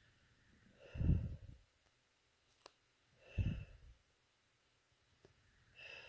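A person's heavy breaths or sighs: two loud exhales about one and three and a half seconds in, and a softer one near the end.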